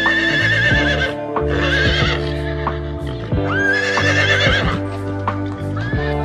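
A horse whinnying, several high, quavering neighs one after another, over background music.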